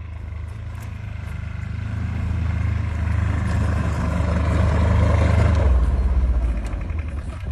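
Kubota Z482 two-cylinder diesel of an Aixam microcar running under load as the car drives through deep snow on chained tyres, with the noise of the tyres churning snow. It grows louder up to about five and a half seconds in, then eases off and drops lower.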